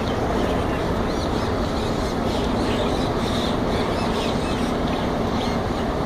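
A large vehicle's engine running steadily, likely a bus idling, with faint high chirps over it.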